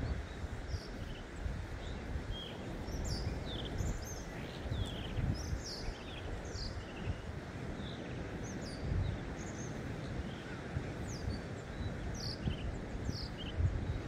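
Many small birds chirping in short, high notes, several a second, over a steady low rumble of wind on the microphone that swells in gusts.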